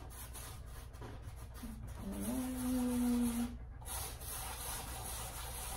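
Paintbrush scrubbing and dragging across a canvas in quick, rough strokes, with a short hummed note about two seconds in.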